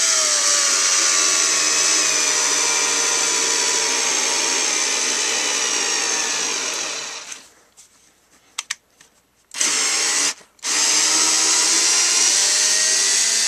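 Ryobi 4-volt cordless screwdriver's motor and gearbox running as it drives a screw into wood. The whine runs for about seven seconds and stops, gives a short burst, then starts again and rises slightly in pitch near the end. The owner suspects the tool's battery is not fully charged.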